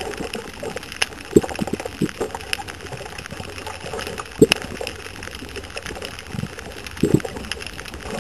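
Water gurgling and sloshing, with scattered sharp clicks and short low knocks.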